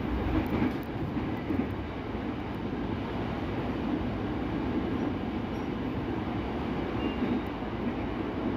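KRL Commuterline electric train running along the track, heard from inside the carriage: a steady rumble of wheels on rail.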